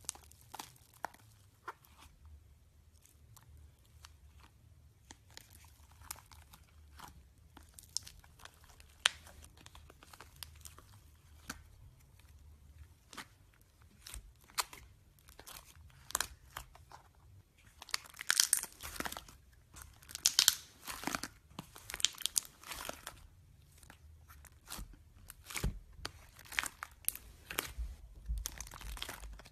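Slime being squeezed and stretched by hand, giving a string of small crackles and pops. They come thickest and loudest a little past the middle.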